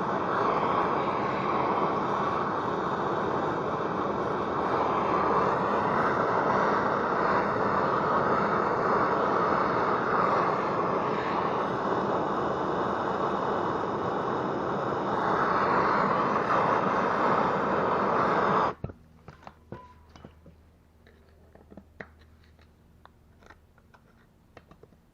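Handheld gas torch flame hissing steadily while it heats the driveshaft U-joint yoke to melt out the injected nylon retainers. The flame cuts off suddenly about 19 seconds in, leaving a few faint ticks and clicks.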